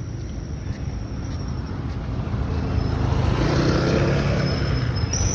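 A motor vehicle passing on the road: engine and tyre noise grow louder from about two seconds in and peak about four seconds in.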